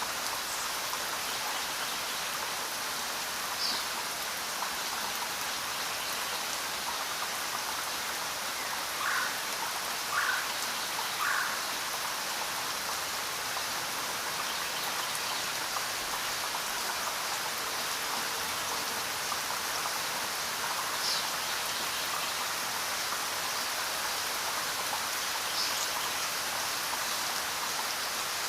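Steady rain falling on a surface, an even hiss with a few short, slightly louder drops standing out, three of them in quick succession about nine to eleven seconds in.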